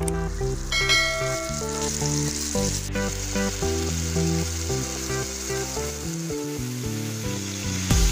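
Onion and spice curry masala sizzling as it fries in a cooking pot, a steady hiss, with background music playing over it.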